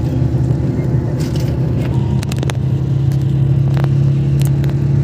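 Coach bus engine and road noise heard from inside the passenger cabin: a steady low hum whose tone shifts about halfway through, with a few light clicks and rattles.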